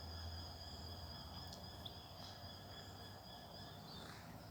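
Faint, steady insect trilling at two high pitches, which stops about four seconds in, over a low hum.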